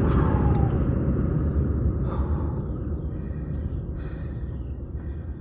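A man catching his breath after heavy lifting, with a couple of deep breaths about two and four seconds in, over a low wind rumble on the microphone that slowly dies down.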